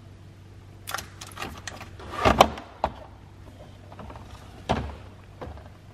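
Plastic food packaging and clear plastic refrigerator bins being handled: a few light knocks and clicks, with a louder clatter and rustle a little past two seconds in.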